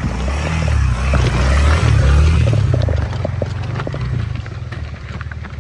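Suzuki Van Van 125's single-cylinder four-stroke engine running at low revs as the motorcycle picks its way down a steep, rocky trail and passes close by. It grows louder, then eases off after about three seconds as the bike moves away, with scattered sharp clicks from stones under the tyres.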